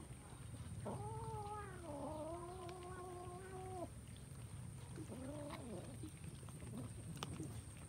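A cat gives one long drawn-out meow lasting about three seconds, with a dip in pitch before it holds steady. A shorter meow follows about five seconds in, with a few faint clicks around it.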